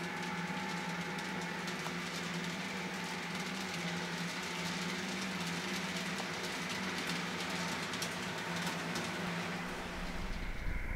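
Märklin model train running on the layout's track: a steady hum with quick, irregular clicks of wheels over rail joints and points, and a short faint tone about half a second in. Near the end the clicks fade and a lower rumble sets in.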